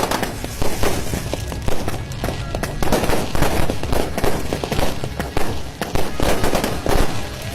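Fireworks going off in rapid, overlapping bangs and crackles with no pause, with music playing underneath.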